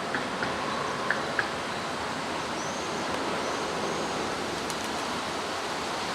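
Steady wind noise from gusts blowing between buildings. A few faint clicks come in the first second and a half, and two faint high chirps around the middle.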